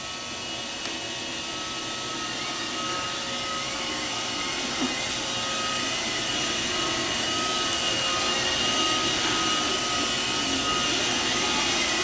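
Roomba robot vacuum running and driving across a hardwood floor with a toddler riding on top, a steady motor whir with a faint whine that grows gradually louder.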